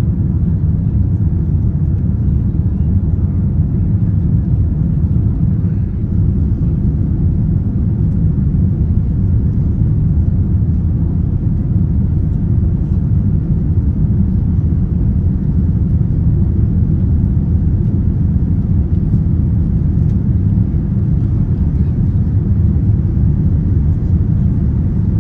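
Steady low rumble inside the passenger cabin of a Boeing 787-9 during the climb after takeoff: its GE GEnx-1B engines and the airflow over the fuselage.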